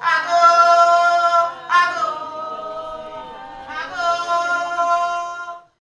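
A voice singing unaccompanied in Ga, in three long-held phrases, with the last one breaking off just before the end.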